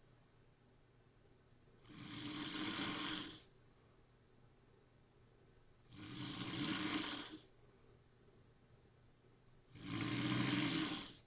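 A sleeper snoring: three long snores about four seconds apart, each lasting about a second and a half, with quiet pauses between.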